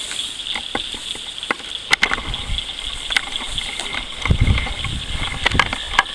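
Footsteps swishing through tall grass, with scattered sharp clicks and low rumbling thumps on the microphone as it is carried along, the heaviest about four and a half seconds in.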